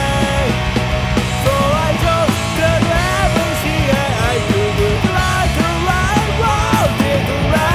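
Melodic punk rock band playing: electric guitar, bass and drums under a male lead vocal singing the verse melody.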